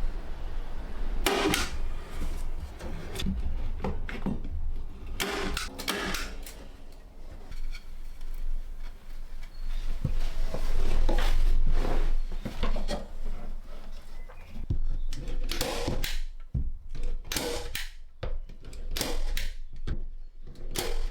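Irregular knocks, clicks and clatter of hand building work in a small room, with a busier run of knocks around the middle.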